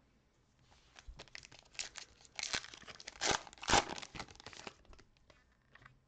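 Plastic foil wrapper of a trading-card pack being torn open and crinkled by hand: a dense crackle that starts about a second in, is loudest around the middle and stops about a second before the end.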